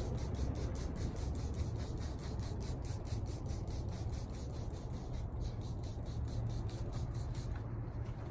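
Trigger spray bottles of waterless wash pumped in quick succession, a fast even run of short hissing sprays about five a second, stopping about seven and a half seconds in. A steady low rumble runs underneath.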